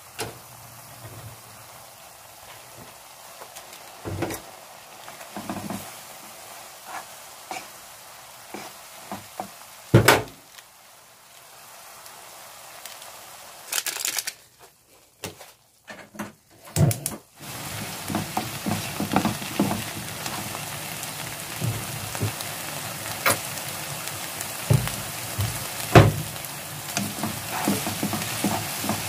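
Instant ramen noodles and sliced onion frying in a pan, stir-fried with the seasoning powder and oil. At first there is a faint hiss with a few knocks against the pan; past the middle, after a few abrupt cuts, a louder, steady sizzle takes over, full of spatula clicks and scrapes.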